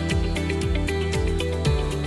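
Background music with a steady beat: regular percussion hits about four times a second over a sustained bass line and chords.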